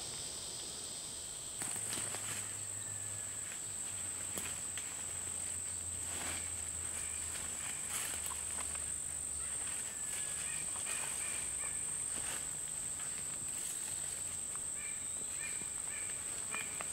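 A steady high-pitched insect trill, with scattered rustles and crunches in dry leaves.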